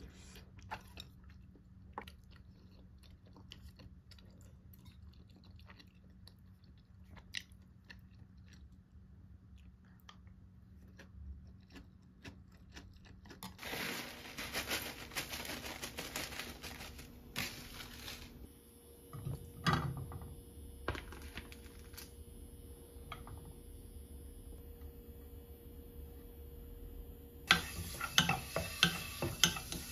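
Quiet eating sounds: chewing with faint light clicks. About 13 seconds in, a plastic bag of cut dried seaweed rustles as it is tipped into a measuring cup of water, followed by a few knocks. Near the end, ground beef sizzles in a stainless saucepan as a wooden spatula stirs it, scraping and clicking against the pan.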